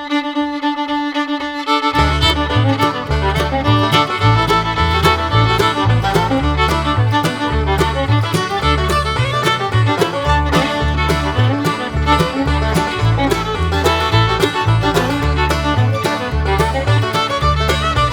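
Background music with fiddle lead over a steady beat and bass line, the beat and bass coming in about two seconds in.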